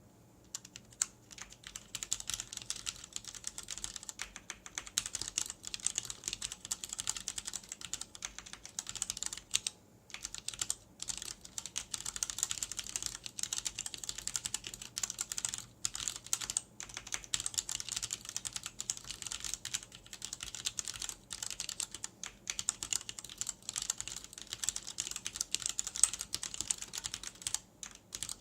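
Fast continuous typing on a vintage keyboard with Cherry MX Black linear switches: rapid clacking keystrokes with brief pauses now and then.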